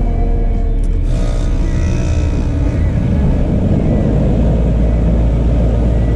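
Lennox air-conditioning condenser unit running with its newly replaced fan motor: a steady low hum, with a few faint tones in the first couple of seconds that fade away.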